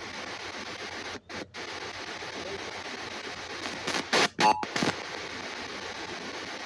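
Spirit box scanner sweeping through radio frequencies: a steady hiss of static that cuts out twice briefly about a second in, with a few short, louder snatches of broadcast sound around four seconds in.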